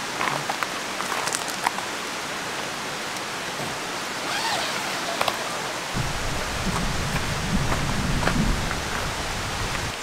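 Steady rushing hiss of a mountain valley stream. A few light clicks and rustles come early on, and a low rumble joins it about six seconds in.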